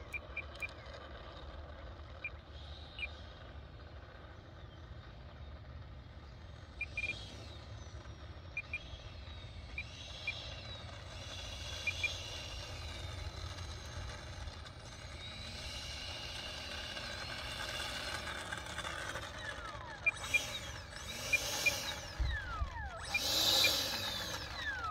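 Electric ducted fan of a 64mm E-flite F-15 Eagle RC jet whining, its pitch rising and falling with the throttle, then a louder burst near the end after which the whine falls away as the fan spools down. A low wind rumble on the microphone runs underneath.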